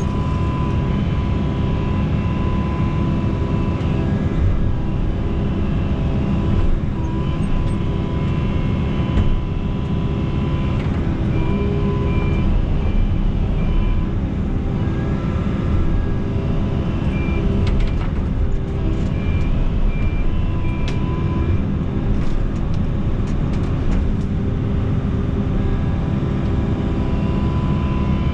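Excavator's diesel engine running steadily under load while it digs, with a thin whine that comes and goes.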